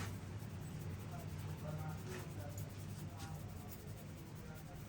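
Faint scratchy rubbing of hands massaging a head, fingers working over scalp and hair, with a few soft clicks over a low steady hum.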